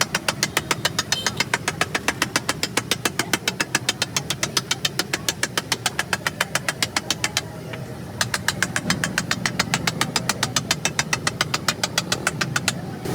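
Rapid, even clatter of a metal spatula striking a flat iron griddle as egg is chopped and mixed, about seven strikes a second, with a short break about halfway through.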